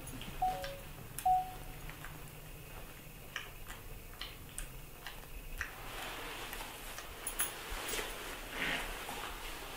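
Small scattered taps and soft rustling as newborn puppies are patted and handled on a fabric cushion, with two short high squeaks in the first second and a half.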